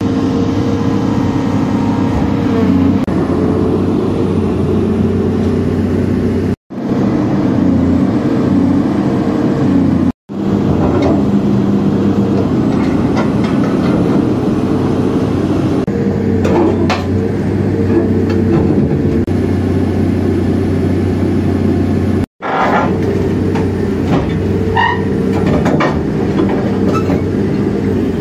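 Caterpillar 330C hydraulic excavator's diesel engine running steadily under load while it works a demolition shear, with scattered metal clanks, creaks and short high squeals from scrap steel being gripped and cut, mostly in the second half. The sound drops out briefly three times at edits.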